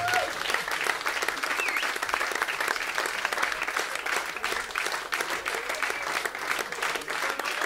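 Audience applauding after a live rock song ends, with a short whoop about two seconds in.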